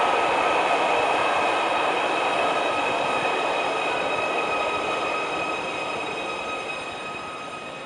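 Merseyrail Class 777 electric train pulling into an underground platform and slowing to a stop: a steady rush of running noise with a high whine, gradually fading as it slows.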